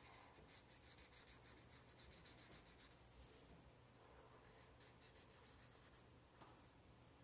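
Faint scratching of a felt-tip marker colouring on paper, quick back-and-forth strokes at about five a second in two spells, with a pause between them.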